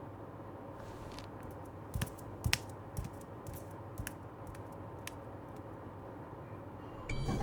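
Scattered keyboard-like clicks and taps, with a few louder ones between about two and four seconds in, over a low steady hum. A louder sound begins near the end.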